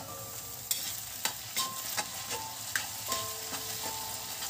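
Okra and diced potatoes sizzling in oil in a metal kadai, with a spatula scraping and clicking against the pan as they are stirred.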